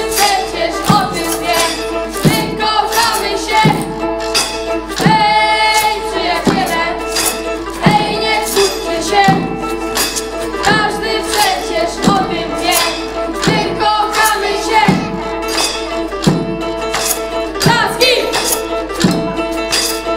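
A children's band playing a song live: acoustic guitar chords and a steady beat on homemade percussion instruments made from jars, cans and scrap, with a boy singing lead into a microphone.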